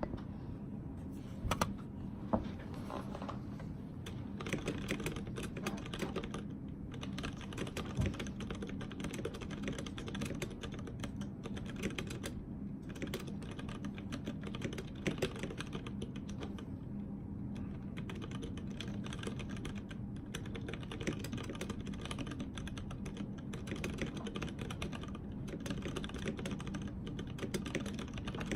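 Steady typing on a Tada68 mechanical keyboard with Outemu Ergo Clear switches and GMK white-on-black keycaps: a dense stream of key clacks with a few brief pauses.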